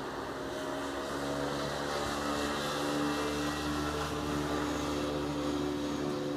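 An engine running steadily, a hum of several even tones that sets in about a second in, over a steady hiss.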